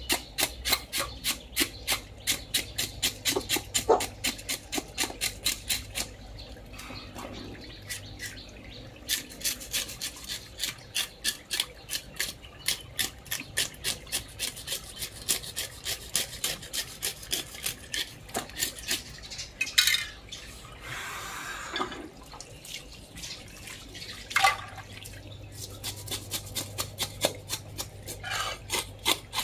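Scales being scraped off a large carp with a blade: quick rasping strokes, about three or four a second, in runs with short pauses between.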